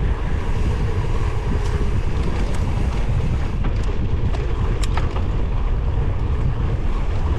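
Wind rushing over an action camera's microphone during a mountain bike ride, a steady low rumble with a few light clicks through it.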